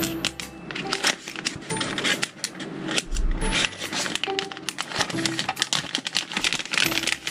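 Small hard clicks and rattles of a SATA cable being handled and plugged into a 2.5-inch SSD enclosure, with light background music of short notes.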